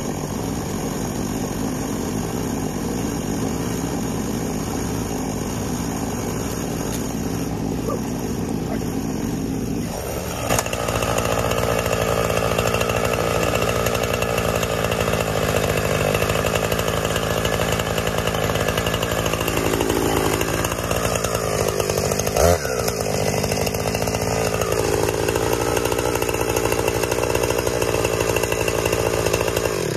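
Husqvarna 455 Rancher two-stroke chainsaw running at a steady idle, then revved up louder about a third of the way in and cut into a log, its pitch shifting as the chain takes the load.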